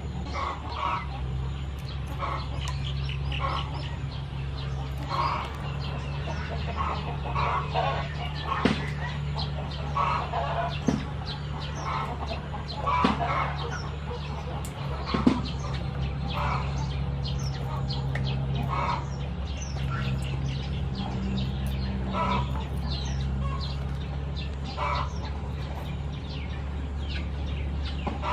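Chickens clucking again and again, with a few sharp snips of scissors cutting razor clam tails, over a steady low hum.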